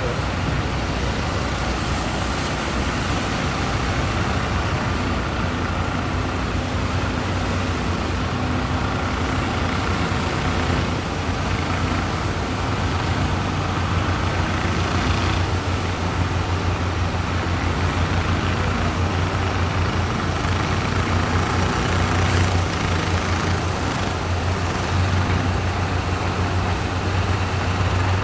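Fishing boat engine running steadily, a low pulsing rumble over a constant wash of surf and wind noise.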